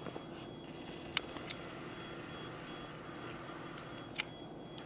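Handheld stud finder held against a wall, giving a steady high-pitched electronic beep that starts just after the beginning and stops near the end. Two sharp clicks come through it, the louder about a second in and another about four seconds in.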